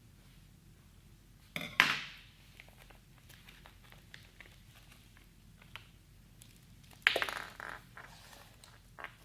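Packaging being handled and opened: two short bursts of crinkling and rustling, about one and a half seconds in and again about seven seconds in, with light clicks and taps between.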